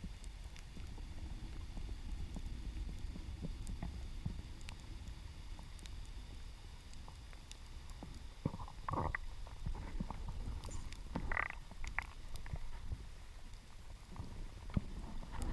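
Underwater ambience picked up by a camera in its housing while swimming over a reef: a steady low rumble of moving water with scattered faint clicks and crackles. A couple of brief higher-pitched sounds come about two-thirds of the way through.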